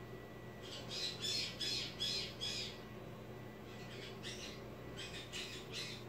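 Short, harsh parrot squawks in two runs of about five, the first starting about a second in and the second after a brief pause, from the cockatoo and cockatiel sharing a perch.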